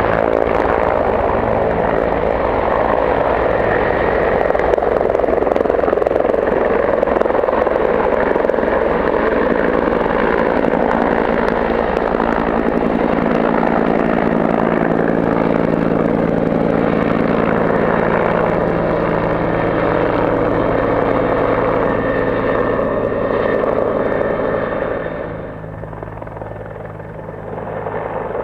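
Helicopter rotor and engine running steadily as it hovers low with a water bucket slung beneath, then flies off; the sound drops and dulls about 25 seconds in.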